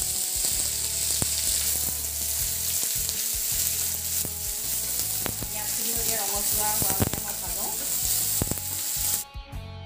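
Freshly added sliced onions sizzling in hot oil in a nonstick kadai, stirred with a wooden spatula that clicks against the pan a few times. The sizzling cuts off suddenly near the end.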